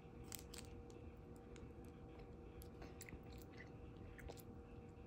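Faint wet mouth clicks and lip smacks from licking a watermelon Airheads candy, a scattering of small clicks over a faint steady hum.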